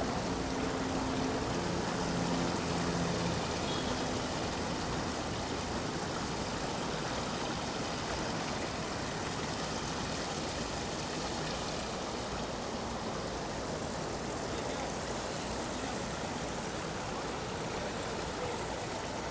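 Shallow water running across a paved walk-in water feature, a steady splashing rush.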